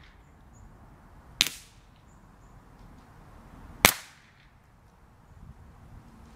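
Ruger 10/22 semi-automatic .22LR rifle firing two single shots about two and a half seconds apart, each with a short ringing tail.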